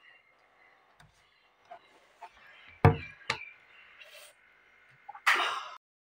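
Handling noise from a phone being set up on a surface: two sharp knocks about half a second apart a little under three seconds in, with lighter taps around them and a short hissing rustle near the end.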